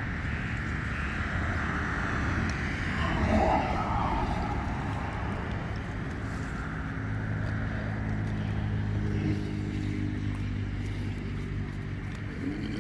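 A motor engine running steadily: a low, even hum that sets in about halfway through, over outdoor background noise.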